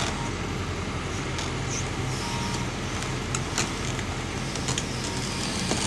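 Heavy diesel engine idling steadily, a low, even rumble with no change in speed.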